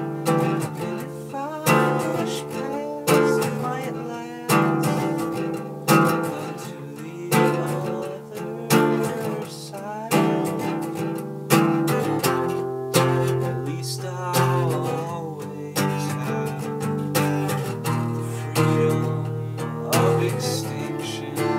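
Acoustic guitar strummed in single chords about every second and a half, each one ringing out and fading, with a man singing over it.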